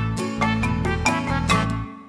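Instrumental music with a regular beat and bass notes, fading out near the end.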